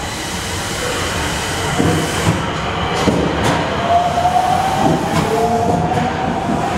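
Nagoya Subway N1000-series electric train pulling out of an underground station and gathering speed. Its wheels clack over rail joints, and a whine from the traction motors rises gently from about halfway through.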